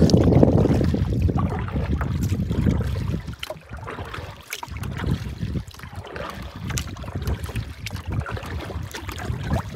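Wind rumbling on the microphone for about the first three seconds, then quieter small splashes and lapping of lake water against a canoe as it is paddled.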